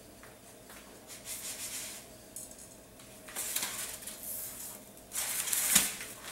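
A nonstick frying pan lifted off the stove and tipped to turn a fried potato cake out onto a paper-lined plate: a few spells of scraping, hissing handling noise, the loudest near the end with a sharp knock as the cake lands.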